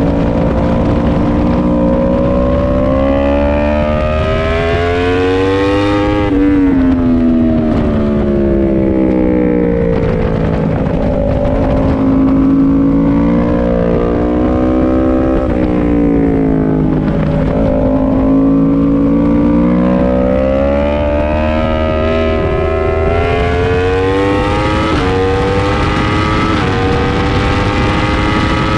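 Sportbike's inline-four engine on track, heard from onboard: the revs climb and fall through the corners, then rise hard with two quick upshifts near the end. A steady low rush lies under it.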